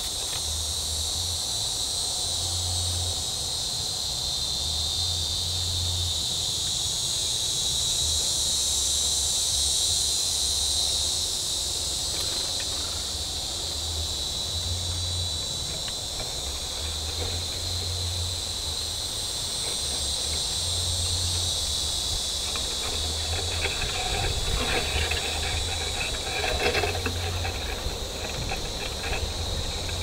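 Steady chorus of crickets and other insects, a continuous high trilling buzz. From a little past two-thirds of the way in, a spell of irregular crackling and rustling rises over it for a few seconds.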